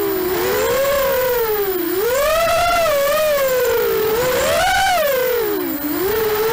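Racing quadcopter's four Emax 2204 2300 kV brushless motors spinning three-blade 5045 props, heard from the camera on board: a loud whine whose pitch swells up and drops back about three times as the throttle is worked.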